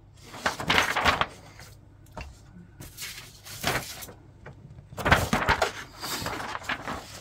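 Paper pages of a Tamiya model-kit instruction booklet being turned and smoothed by hand: three bursts of rustling, sliding paper with short pauses between.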